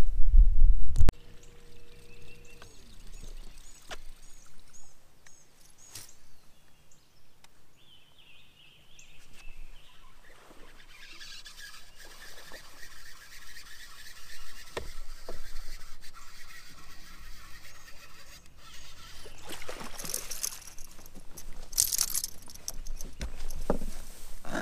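Lakeside ambience with small birds chirping and water trickling as a hooked bass is played on a rod from a bass boat, with two short splashing rushes near the end as the fish is brought to the boat.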